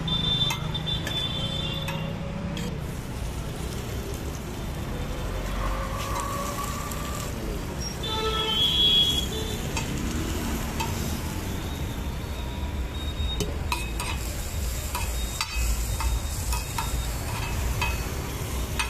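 Metal knife and spatula tapping and scraping on a flat iron tawa as sliced onions and tomato are cut and stirred on it, with a light sizzle and a low rumble of street traffic behind. The taps come thicker in the last few seconds, and a short high-pitched tone sounds about eight seconds in.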